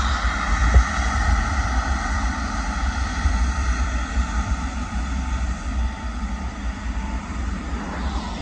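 Turbofan engines of a wide-body jet airliner passing close by at low speed: a steady high whine of several held tones over a low rumble. A brief knock comes about a second in.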